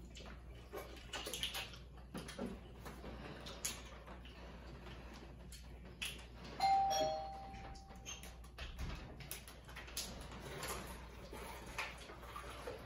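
Faint crinkling and clicking of plastic water bottles as people drink from them, and a clear two-note electronic chime about six and a half seconds in. The chime is a higher note held for over a second, with a shorter lower note.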